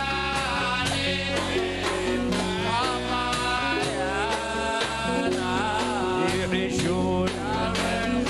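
A song with a singing voice over a steady, regular beat.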